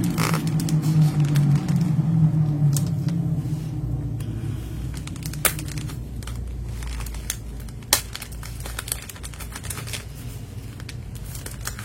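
A boxed keycap set being handled: scattered sharp clicks and taps with light plastic crinkling. A low hum is loudest in the first few seconds and then fades.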